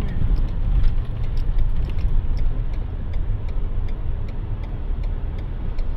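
Car driving slowly along a rough track: a steady low rumble of engine and tyres, with scattered light ticks throughout.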